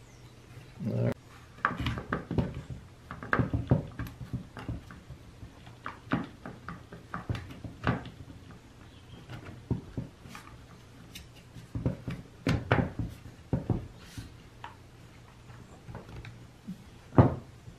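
Plastic housing parts of a Jon Cutter G5800 chainsaw being handled and pressed into place: irregular clicks, taps and knocks, with a sharper knock near the end.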